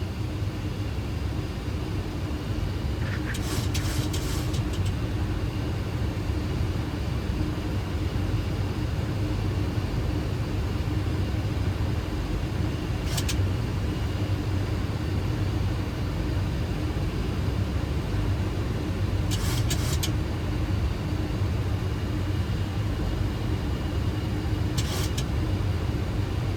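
Steady flight-deck noise of a Boeing 737 on final approach with gear down and flaps 30: a low rumble of airflow and engines with a steady hum. A few brief crackles come through, about four times.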